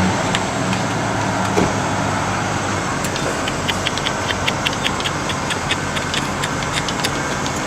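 Vehicle engine running steadily with a low hum, overlaid with frequent short, light clicks and rattles.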